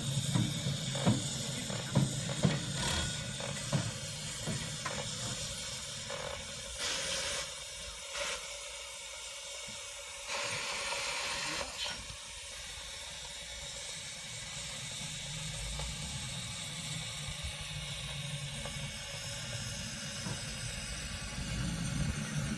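15-inch gauge Pacific steam locomotive Green Goddess standing in steam, hissing steadily. There are two louder bursts of hiss, one about seven seconds in and one from about ten to twelve seconds in, and a few clicks and knocks in the first few seconds.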